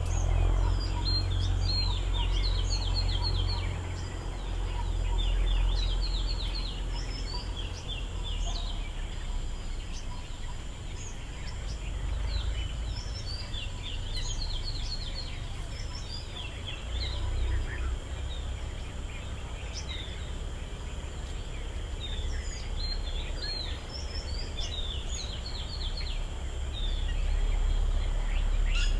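Outdoor ambience: birds chirping in quick runs of short high notes, coming in several bursts, over a steady high insect drone and a low rumble.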